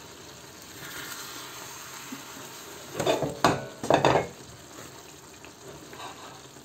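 A pan of small kachki fish cooked with potato and tomato, sizzling steadily in a stainless steel pan while it is stirred gently with a wooden spatula. A few louder stirring strokes of the spatula through the pan come about three to four seconds in.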